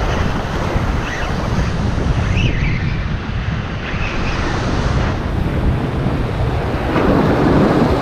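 Ocean surf washing over rocks along the shore, with wind buffeting the microphone. The surf gets louder near the end.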